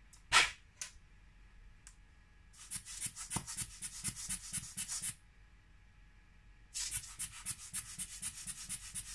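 A sharp click, then rapid back-and-forth rubbing strokes on a phone's glass screen in two runs of about six strokes a second, with a pause between them.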